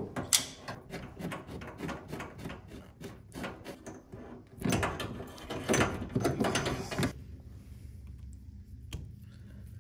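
Repeated clicks and metallic clatter of tongue-and-groove pliers gripping, slipping and re-gripping the metal hose couplings as washer fill hoses are tightened onto the inlet valves, dying away about seven seconds in.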